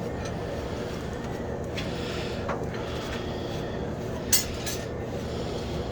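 Steady low rumble of a running forge, with two sharp clinks of steel tools on metal about four seconds in.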